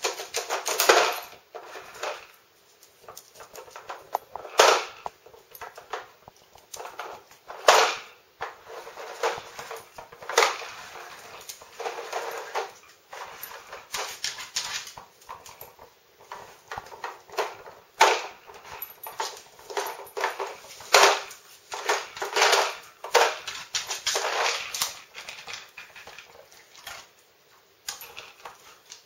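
Dog pawing and nosing at a Nina Ottosson Dog Casino plastic treat puzzle, working to open its drawers, with irregular clattering knocks of hard plastic, some much louder than others.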